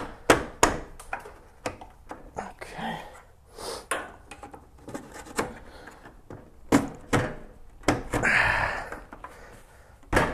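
Hands fitting a New Edge Mustang's plastic headlight assembly into the front end: a series of sharp plastic clicks and knocks, with about a second of rubbing noise around eight seconds in.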